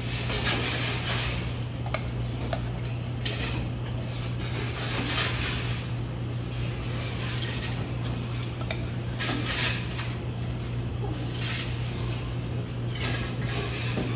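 A metal spoon stirring and scraping inside a stainless steel milk pitcher, in short bouts every second or two, over a steady low hum.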